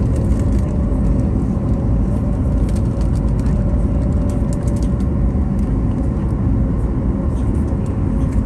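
Steady low rumble inside the cabin of a Boeing 737 MAX 9, its CFM LEAP-1B engines running at low power as the airliner taxis, with a faint steady hum over it.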